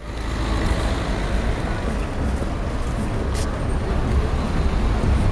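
Street traffic noise: a steady rumble and hiss of cars on the road, with a short sharp click about three and a half seconds in.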